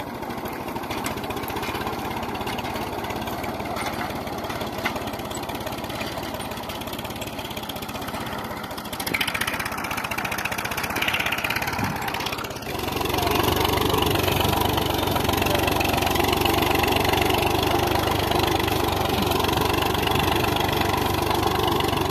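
Old Massey Ferguson tractor's diesel engine idling with a fine, even ticking; about thirteen seconds in it picks up and runs louder and fuller for the rest of the time.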